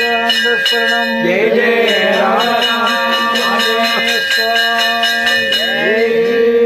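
Hand-held puja bell rung rapidly and evenly, about four strikes a second, ringing steadily throughout. Voices chant over the bell, most clearly about a second and a half in and again near the end.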